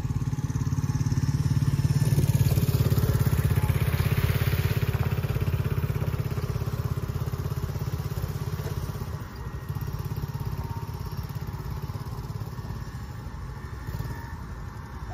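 Small 125cc four-wheeler (ATV) engine running as it is ridden. It grows louder over the first few seconds and eases off again after about nine seconds.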